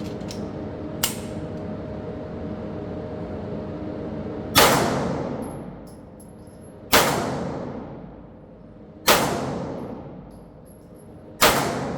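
Four 9mm shots from a Foxtrot Mike FM9 AR-style pistol, fired slowly, a little over two seconds apart. Each shot trails off in a long echo. A light click comes about a second in.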